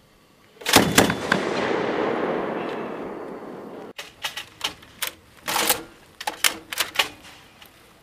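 Mark 19 40mm grenade machine gun firing. Two heavy shots about a second in are followed by a long rolling echo that fades over about three seconds. Then comes a string of sharper reports, irregularly spaced a few tenths of a second apart.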